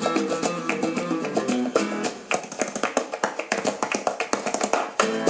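Recorded Spanish guitar music played through large loudspeakers driven by a homemade 70 W bridged Class D amplifier: fast runs of plucked notes, then rapid strummed chords from about two seconds in.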